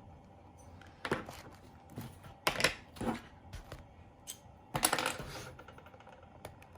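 Plastic shrink-wrap on a sealed trading-card box being picked at and torn open: scattered sharp crinkles and clicks, with a denser crackling burst about five seconds in.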